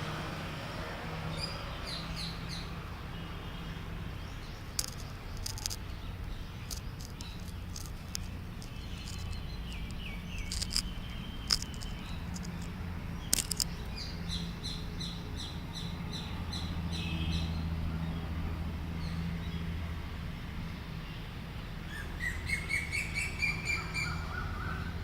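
Asian koel (koyal) calling among other chirping birds, with a quick series of notes climbing in pitch near the end, over a steady low hum.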